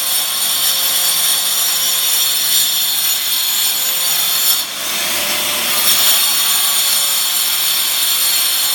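Power cutter with a spinning disc, cutting a groove along a crack in a concrete floor screed to relieve stress in it, with a vacuum cleaner drawing off the dust. A steady high whine and grinding noise, with a short dip in load about halfway through.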